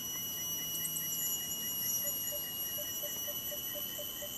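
Tropical forest insects: a steady high-pitched drone of several tones, with a rapid, regular chirping at about six pulses a second.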